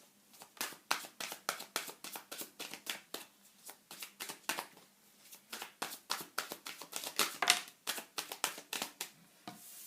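A tarot deck being handled: an irregular run of sharp card clicks and slaps, several a second.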